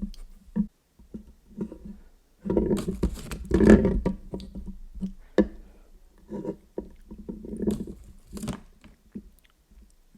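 Close-miked chewing and wet mouth sounds from eating Kinder milk chocolate, coming in irregular bursts, loudest about four seconds in.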